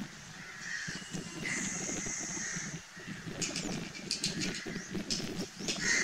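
House crow cawing several times over a steady low background rumble.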